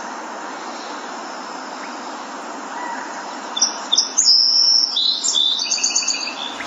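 A bird chirping in quick, repeated high notes that start about halfway through, over a steady background hiss.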